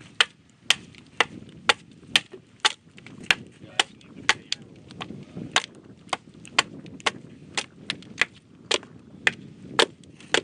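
Large bushcraft knife chopping down along a wooden paddle blade in steady, sharp strokes, about two a second, taking off thin pieces to thin the blade.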